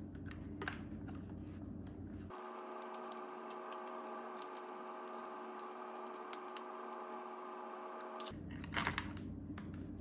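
Light clicks and ticks of a Phillips screwdriver and hands working on the plastic battery pack of a Dyson V8 stick vacuum, a run of small irregular taps.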